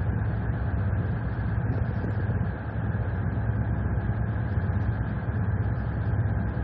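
A steady, low engine rumble that holds even, with no rise or fall in pitch.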